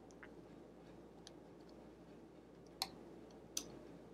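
Faint, sparse clicks and taps of small metal parts being handled inside a vintage 1970s Kenmore sewing machine as a nut is worked onto a bolt at the back, with two sharper clicks about a second apart in the second half.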